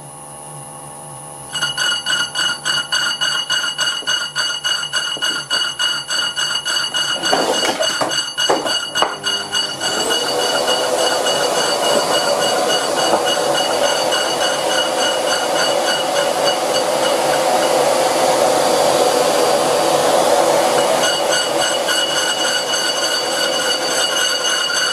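Century-old bench lathe cutting a rusty cast-iron brake disc with a round carbide insert at 200 RPM. The motor's whine comes in about a second and a half in, under a scraping cut that pulses about three times a second, once per turn of the wobbling disc. About ten seconds in, a suction hose at the cut starts with a rising whine and adds a steady rush that carries on over the cutting.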